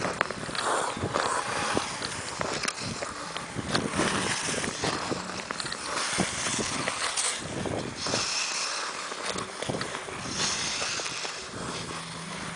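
Ice skate blades striding on thick, glass-clear lake ice: a run of sharp scrapes and ticks with each push, with a hiss from the blades gliding between strokes.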